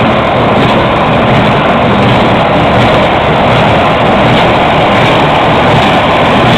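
Farm machinery running steadily and loudly: a tractor engine with the clatter of working hay equipment, unchanging throughout.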